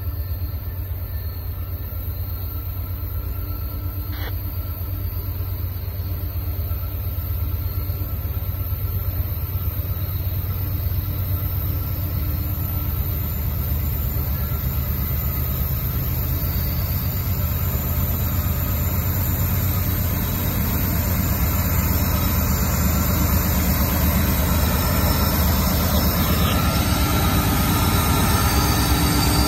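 CSX diesel-electric freight locomotives approaching on the line, their engines a low, steady rumble that grows gradually louder as the train nears.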